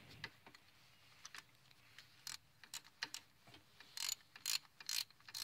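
Socket ratchet clicking as a long starter mounting bolt is loosened. Faint scattered clicks give way to four louder short bursts of ratcheting about four seconds in.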